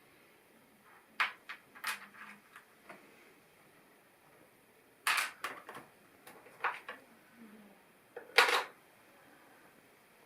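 LEGO plastic pieces clicking and rattling as they are handled. Sharp clicks come in clusters, with the loudest clatter near the end.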